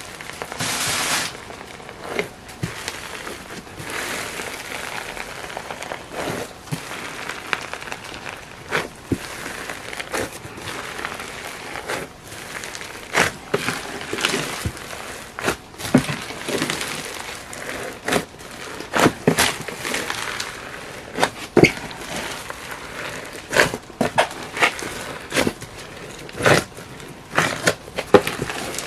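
Slime being kneaded and squeezed by hand, a continuous sticky squishing punctuated by irregular sharp pops and clicks, which come thicker and louder in the second half.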